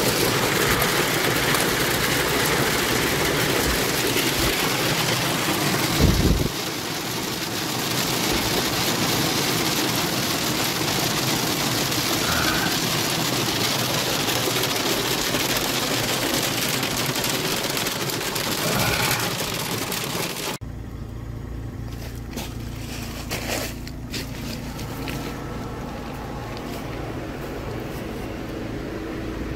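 Heavy hail pelting down: a loud, dense, even hiss, with a heavy thump about six seconds in. About two-thirds of the way through it cuts off suddenly to a quieter steady low hum.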